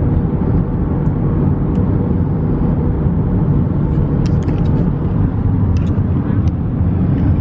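Steady road and engine noise of a moving car, heard from inside the cabin, with a few light clicks between about four and six seconds in.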